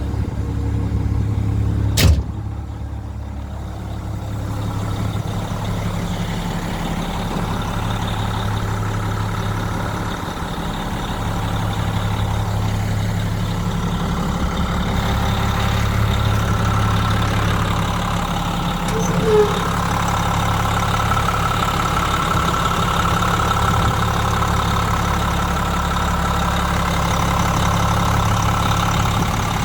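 Hyundai Robex 500 excavator's diesel engine running steadily. A single sharp knock comes about two seconds in, and a faint higher whine joins about halfway through.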